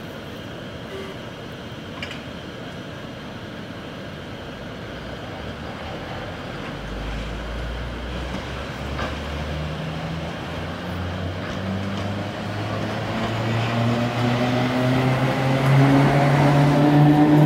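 1938 Tube Stock electric train moving along the platform and passing close by, its motors whining in several tones that rise slowly in pitch as it speeds up, growing steadily louder as it approaches.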